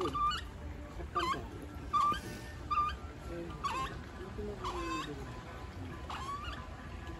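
Capybara giving short chirping peeps, about one a second, each a brief rising note.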